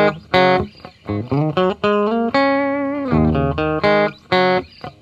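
Intro music: a plucked guitar playing a quick melodic line of single notes, some sliding up or wavering in pitch.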